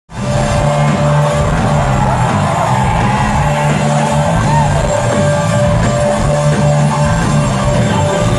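Live rock band playing loudly, heard from inside the crowd: a repeating bass line under guitar and vocals, with audience members shouting.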